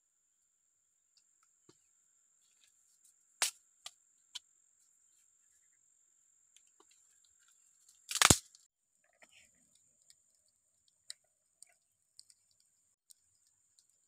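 A steady high-pitched insect trill, with scattered sharp clicks and knocks from dry bamboo sticks being handled and laid onto a mound of soil. The loudest knock comes about eight seconds in.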